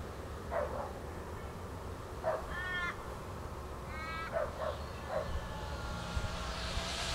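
Crow cawing: two drawn-out caws about a second and a half apart, with a few shorter calls around them, over a low steady background hum.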